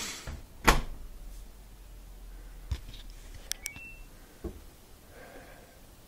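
Front-loading washer door slammed shut with a sharp latch click about a second in, then a few light knocks and brief electronic beeps from the control panel about halfway through.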